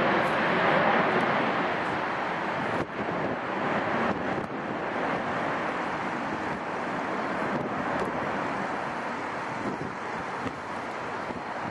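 Jet engine noise of an Airbus A380, a steady rushing roar that slowly fades as the aircraft moves away.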